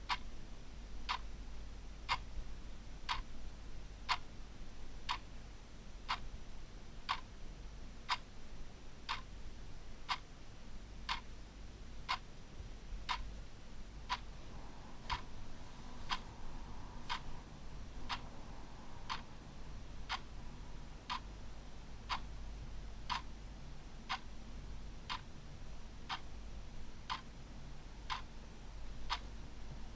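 Clock ticking steadily, one sharp tick each second, over a faint low hum.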